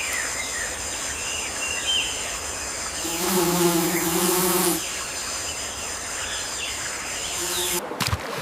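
A flying insect buzzing close by for about a second and a half around the middle. A brief second buzz comes near the end. Scattered short bird chirps sound over a steady natural background hiss.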